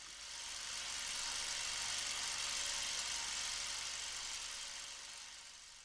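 A hissing wash of noise with a faint steady hum under it, swelling up over the first few seconds and fading away toward the end.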